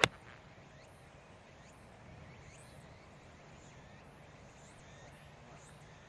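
A single sharp crack of an iron club striking a golf ball and taking a divot from the fairway turf. Faint high chirps follow in the background.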